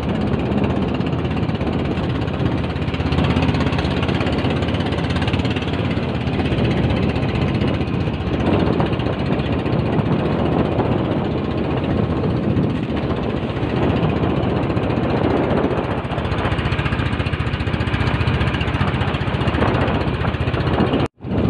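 Motorized fishing boat's engine running steadily under way, with a dense mechanical clatter; the sound drops out for an instant near the end.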